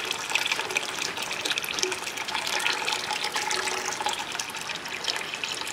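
Water being poured into a bucket of salted water, splashing and trickling steadily.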